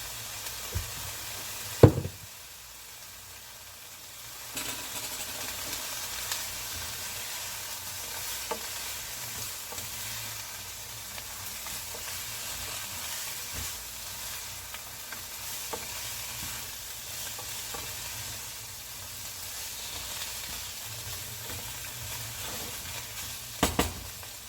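Chicken feet frying with ginger, garlic and onion in a pan, sizzling steadily while being stirred. A loud clank of a utensil against the pan comes about two seconds in, the sizzle quietens for a couple of seconds after it, and two more loud clanks come near the end.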